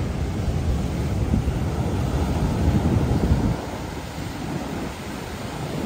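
Ocean surf breaking and washing up the beach, with wind buffeting the microphone; the low rumble eases about three and a half seconds in.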